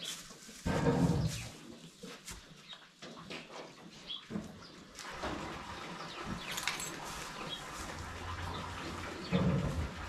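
Young cow nosing and rooting through a heap of loose straw bedding, the straw rustling and crackling. Two short low sounds from the animal come about a second in and again near the end.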